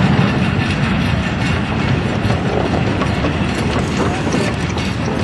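A long train of narrow-gauge steel skip wagons rolling along the track, their wheels and tipping bodies rattling and clanking continuously.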